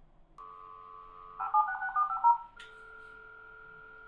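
Dial-up modem opening a 1200 bps V.22 call: a steady dial tone on the line, then a rapid string of touch-tone (DTMF) digits as it dials the number, then a click and a steady tone while the call goes through.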